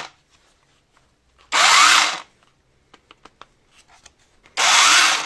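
Hychika one-handed cordless chainsaw with a brushless motor, run at full power twice in short bursts, about a second and a half in and near the end. Each burst lasts under a second, the motor spinning up with a rising whine and then stopping, with a few light clicks between them.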